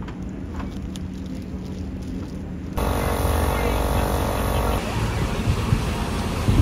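A low steady engine hum. About three seconds in it cuts to a louder, steady pitched machine noise from a power tool working on metal. About two seconds later that gives way to a boat engine with wind and rushing water.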